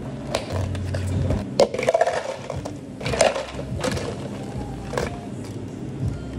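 Scattered clinks and knocks of drink-making at a café counter: a stainless pitcher and plastic cups of ice handled and set down, and ice cubes rattling. Near the end, water is poured over ice. A steady low hum runs underneath.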